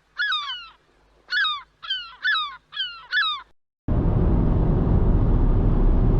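A gull gives about six short, harsh calls, each falling in pitch. About four seconds in the calls stop and a loud, steady rushing noise starts suddenly.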